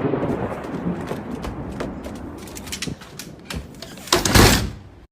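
Thunder from a close lightning strike rumbling and fading away, with scattered sharp crackles. Near the end comes one loud, short bang, then the sound cuts off.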